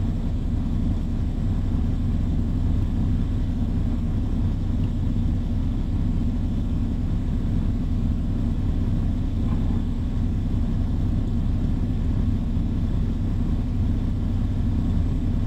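Diesel engine idling, a steady low rumble that holds an even level throughout.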